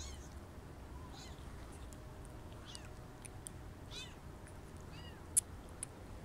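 Young kitten mewing while being bottle-fed: short, high-pitched, downward-falling cries roughly once a second. A couple of sharp clicks near the end, the first the loudest sound.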